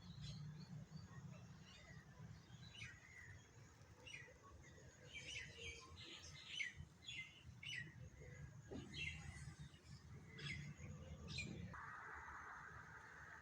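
Small birds chirping faintly: many short, high, falling chirps, thickest in the middle, over a low rumble. A steady hiss comes in near the end.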